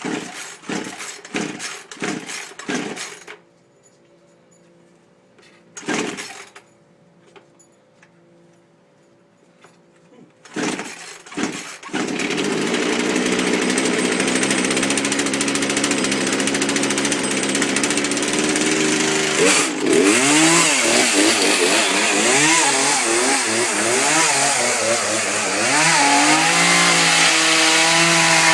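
Gas chainsaw being pull-started: a run of quick cord pulls, then a pause, then a few more pulls. About twelve seconds in the engine catches and runs loud and steady, and from about twenty seconds in its pitch swings up and down as it is revved.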